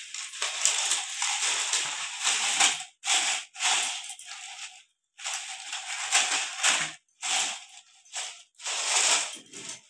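Thin strips of cut plastic soft-drink bottles crinkling and rattling as they are handled and pushed over one another, in irregular bursts with short pauses.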